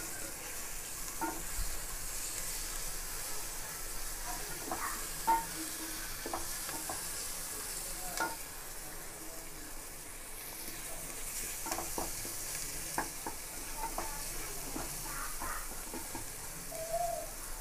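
Chopped onions and tomatoes sautéing in oil in an aluminium pressure cooker, sizzling steadily, while a wooden spatula stirs them with scattered scrapes and taps against the pot.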